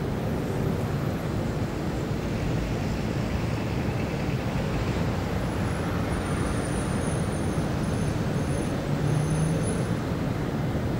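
Steady city traffic ambience: a continuous rumble of cars and other road vehicles, with faint high-pitched chirps over the second half.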